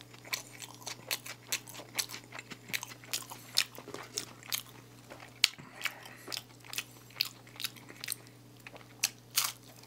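Close-miked chewing of a mouthful of McDonald's burger: short wet mouth clicks, about two a second, thinning out near the end.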